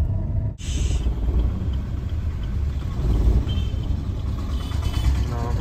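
Car engine and road rumble heard from inside the cabin while driving, steady apart from a brief break about half a second in.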